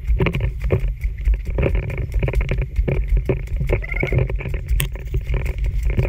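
Handheld camera microphone jostled while walking a forest trail: a heavy, uneven low rumble with irregular knocks from footsteps and handling, and a brief chirp about four seconds in.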